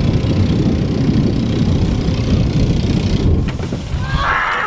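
8-horsepower SPS mud motor running steadily as the jon boat travels under way, with wind rumbling on the microphone.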